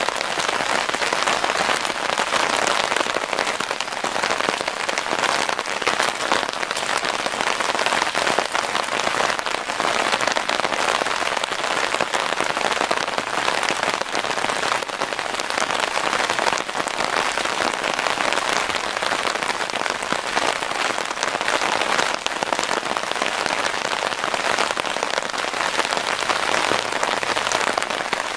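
Steady rain pattering down, a dense, even hiss of many small drops that keeps up without a break.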